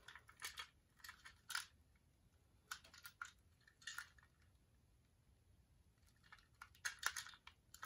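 Faint, scattered clicks and crinkles of a plastic PLARAIL Thomas toy engine being handled over bubble wrap, with quiet gaps between them and a longer lull in the middle.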